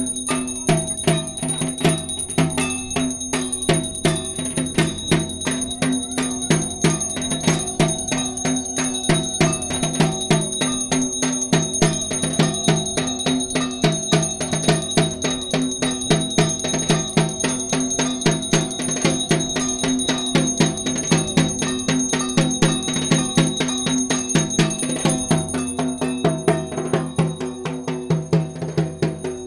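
Background music with a fast, steady beat and a high ringing tone above it.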